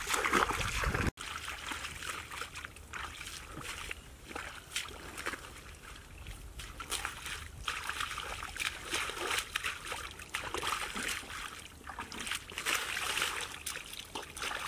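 Shallow muddy water splashing, sloshing and trickling as hands and feet work through wet mud, in irregular small splashes with no steady rhythm.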